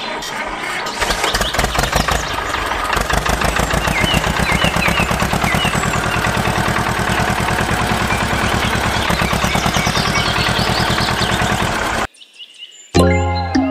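Tractor engine chugging at a rapid, even beat, with birds chirping now and then; the engine cuts off suddenly about twelve seconds in.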